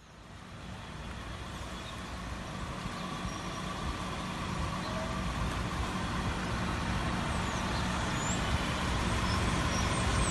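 Outdoor background noise: a steady rumble and hiss, like traffic, that fades in over the first second or two and slowly grows louder.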